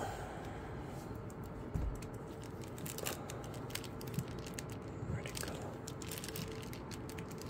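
A Yorkshire terrier puppy rummaging nose-first through a fabric bin of plush and rope toys: rustling and crinkling with scattered clicks and crunches, and a soft thump about two seconds in.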